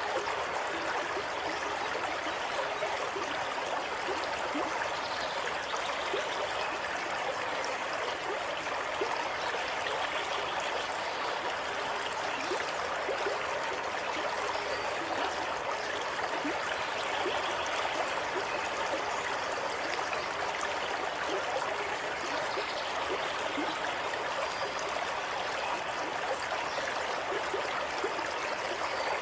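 Running water flowing steadily, an even rush that holds the same level throughout, with no wave-like surges.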